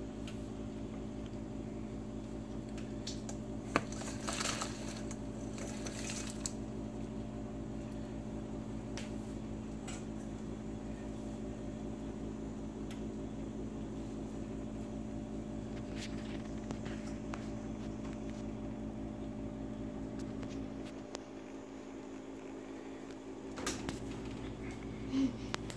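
Steady mechanical hum of several constant low tones over a pan of shrimp simmering in a bubbling red pepper sauce, with a few scattered soft pops and crackles. The hum thins out briefly near the end.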